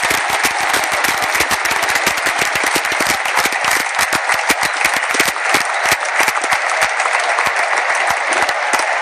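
Large stadium crowd applauding, with many sharp claps over a steady crowd din.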